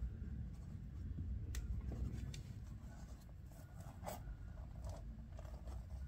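Scratchy rustling and a few light clicks of a shifter boot being handled and worked into its plastic console bezel by hand, over a steady low hum.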